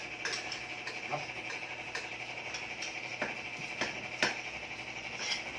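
About half a dozen light, sharp clicks and knocks, scattered irregularly, over a steady high hiss.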